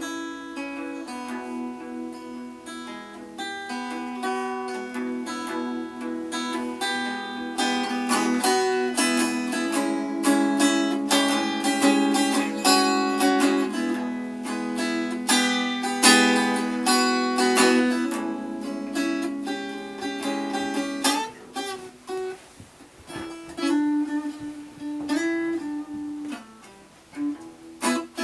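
Acoustic guitar played solo, strummed and picked over a simple two-chord pattern, growing fuller and louder part-way through, then thinning out to sparser strokes in the last few seconds.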